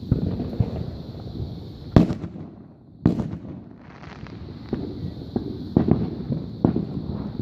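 Neighborhood fireworks going off: two sharp bangs about two and three seconds in, more bangs near the end, and a continuous rumble and crackle of further fireworks in between.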